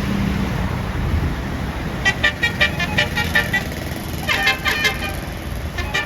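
Tour bus's basuri 'telolet' multi-tone horn playing a quick run of short staccato notes about two seconds in, then a second phrase that opens with a sliding-down note, over the low rumble of road traffic.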